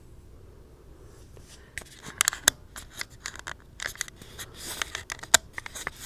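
Handling noise: an irregular run of sharp clicks, taps and short rustling scrapes as small objects are picked up and moved about close to the microphone, starting about two seconds in.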